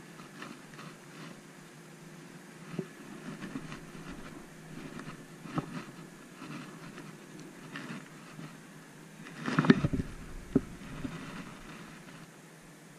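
Handling noise of a spinning rod and reel being worked: light clicks and rustles, a few sharper knocks, and a louder bump with a deep rumble just before ten seconds in.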